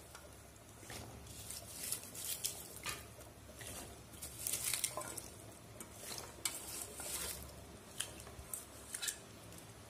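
Cut pumpkin stems being dropped by hand into a wok of hot water and boiled potatoes, landing with a run of soft, irregular patters and small wet splashes.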